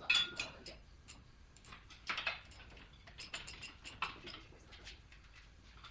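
Scattered light metal clinks and ticks from tools and parts being handled, with a ringing clink at the start and another about two seconds in.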